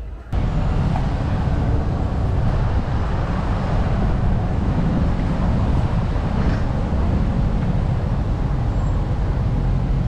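Loud, steady low rumble of city street and traffic noise, starting abruptly a moment in.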